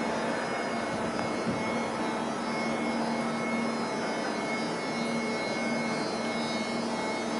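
SNCB electric multiple unit standing at the platform, its onboard equipment running with a steady hum, a low steady tone under it and a faint high whine.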